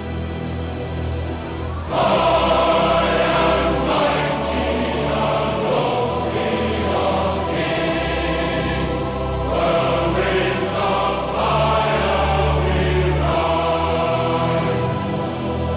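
Background music: a song with a choir singing over a full instrumental backing, swelling louder about two seconds in.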